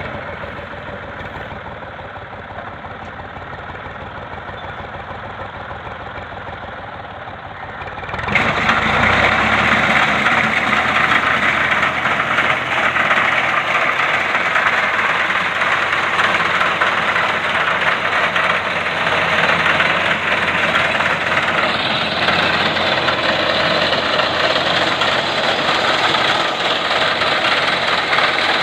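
Massey Ferguson 135 tractor's engine running steadily with a reaper attachment. About eight seconds in it becomes suddenly much louder and fuller, then stays steady.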